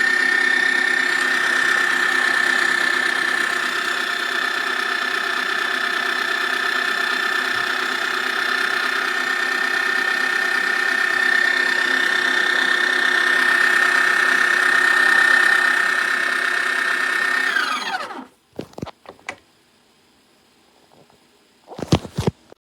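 Breville Barista Touch's built-in conical burr grinder running steadily with a high whine, then winding down with a falling pitch and stopping about eighteen seconds in. A few short knocks follow.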